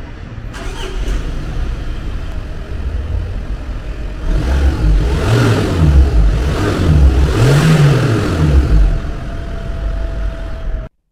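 Range Rover Velar D240's 2.0-litre four-cylinder turbodiesel heard at the exhaust, idling, then revved several times in quick succession about halfway through before dropping back to idle.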